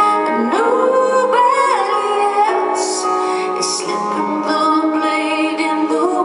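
A woman singing live in concert over her own piano accompaniment, holding long notes with slides between pitches.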